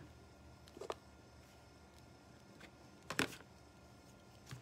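A few light taps and clicks of craft tools and paper being handled on a work surface, the loudest a short cluster a little after three seconds, over quiet room tone.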